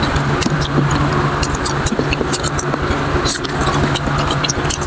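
Chewing and mouth clicks with light taps of plastic forks in a paper takeout box, over a steady background hum.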